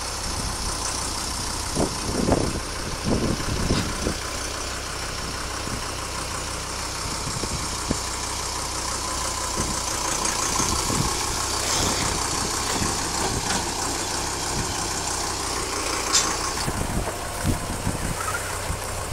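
Deutz farm tractor's diesel engine running steadily, with a few short thumps about two to four seconds in.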